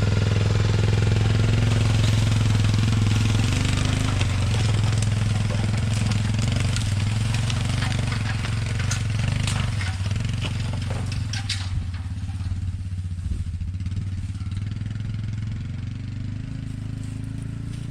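Engine of a Kawasaki Mule utility vehicle running steadily while driving, a low drone with scattered rattles and knocks in the middle stretch. It eases off a little in the second half.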